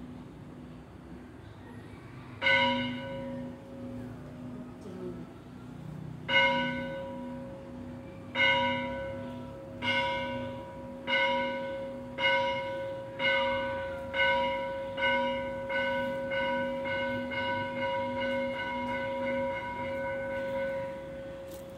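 A bell struck some fifteen times, with a few seconds between the first strokes and then faster and faster, each stroke ringing on over a steady ringing tone. The strokes grow gradually softer toward the end.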